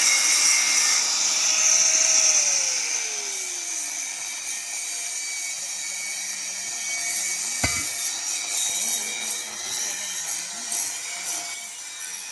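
Grinder with a cutting disc cutting through thick stock, a steady high grinding hiss that is loudest in the first couple of seconds and eases a little after. A lower tone slides down in pitch around two to four seconds in, and there is a sharp knock about eight seconds in.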